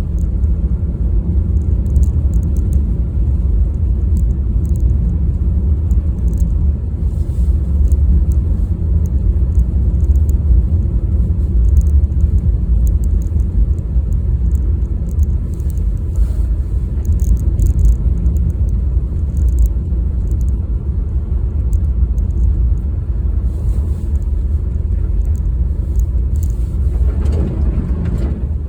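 Steady low rumble of a car driving: road and engine noise. A brief higher sound rises out of it near the end.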